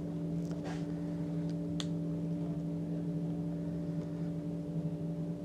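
A steady hum made of a few held tones, with a couple of faint clicks about half a second in and just before two seconds in.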